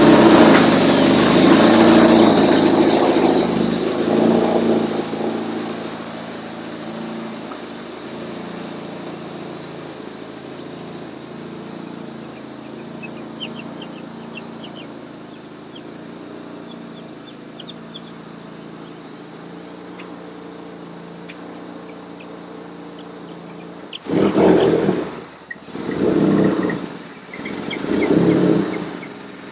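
A loud engine-like running sound that fades away over the first few seconds, then a quieter steady hum. Near the end come three short, loud bursts of a motor, each lasting about a second and a half.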